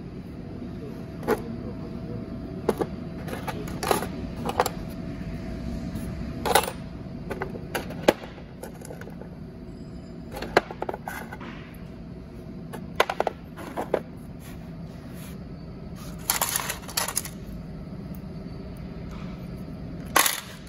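Small machined metal parts (steel collars, bushings and brass fittings) clinking and clacking against each other and the plastic bin as they are picked up and handled. The clicks come irregularly, with a rattling cluster about 16 seconds in and a sharp clack near the end, over a steady low hum.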